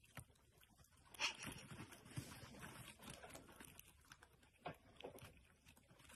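Near silence, with faint scattered clicks and rustles and a slightly louder click about a second in.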